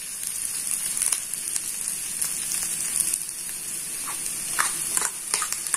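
Shredded cabbage and green capsicum sizzling softly in oil in a pan on low heat. A few short, light taps and scrapes near the end.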